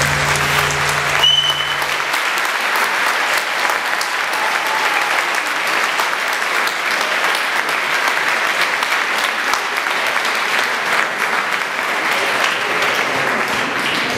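Audience applauding steadily, a dense even clapping that takes over as the last notes of the tango music die away about two seconds in.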